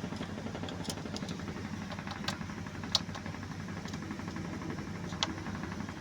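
A steady low engine hum runs throughout, with a few short sharp clicks on top, the loudest about three seconds in.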